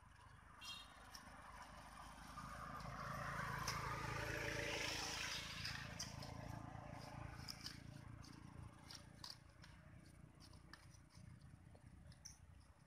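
A passing vehicle: a rush of noise with a low hum that swells to a peak about four to five seconds in and then fades away. Short scrapes and clicks of a machete and hands digging into wet soil come and go throughout.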